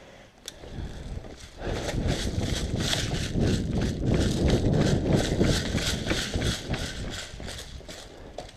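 A person running over rough ground: steady footfalls about three a second with kit rattling and wind-buffeted thumps, building up about a second and a half in and fading near the end.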